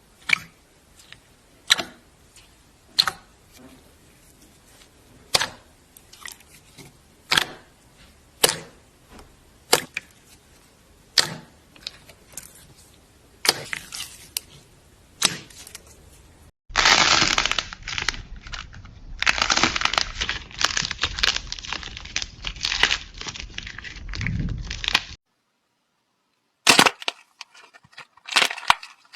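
A run of sharp single snaps or cracks, roughly one a second. After an abrupt cut comes a dense stretch of crackling and crunching, then a short dead silence and a few more sharp clicks near the end.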